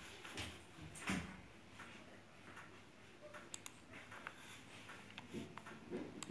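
A few faint, sharp computer-mouse clicks: two close together about three and a half seconds in, and more near the end.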